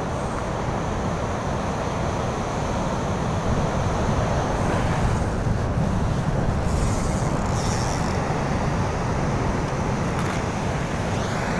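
Wind rumbling on a phone microphone over the steady rush of breaking surf.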